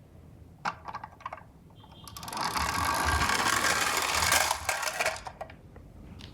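Toy ambulance minicar rolling down a slope: a few sharp clicks, then about three seconds of loud rattling as the small wheels run downhill, tailing off into a few clicks.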